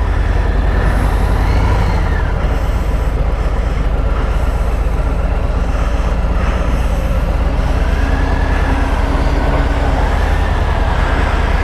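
Harley-Davidson Milwaukee-Eight 114 V-twin engine running steadily as the motorcycle is ridden along, a constant low rumble.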